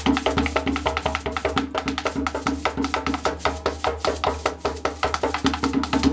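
Background music with a fast, steady percussive beat and a melody over a steady bass.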